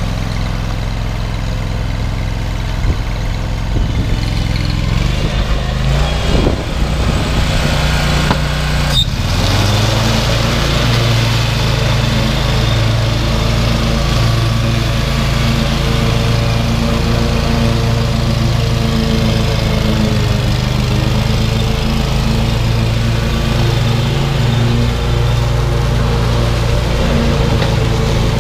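Scag Tiger Cat II zero-turn mower's 22 HP Kawasaki FX691V V-twin engine running steadily under load while the closed-chute deck mulches leaves, with a brief click about nine seconds in.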